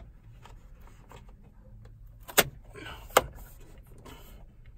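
Two sharp plastic snaps a little under a second apart, as snap-on covers are pressed onto a stick-on wire channel, with light fumbling and rubbing of the plastic between them.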